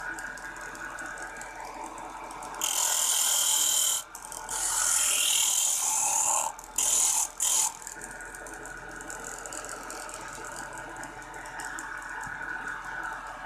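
Homemade belt-driven disc sander running with a steady hum. About two and a half seconds in, a strip of wood is pressed against the spinning sanding disc four times over about five seconds, each contact a loud, hissing sanding rasp.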